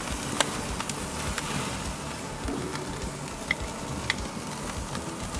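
Stuffed squid sizzling on a hot grill as steady hiss, with a few sharp clicks and crackles while the pieces are lifted off with metal tongs.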